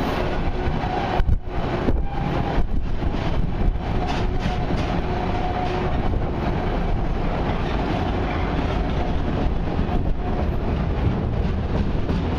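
Autorack freight cars of a long train rolling slowly past: a steady rumble of steel wheels on the rails, with a faint, wavering tone above it and a few knocks in the first few seconds.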